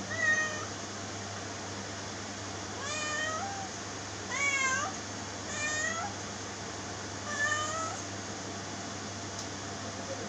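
A domestic cat meowing five times, a second or more apart, each call short with a wavering pitch, over a steady low hum.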